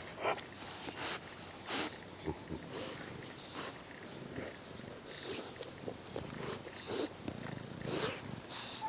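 English Bulldog puppies making short, irregular animal noises.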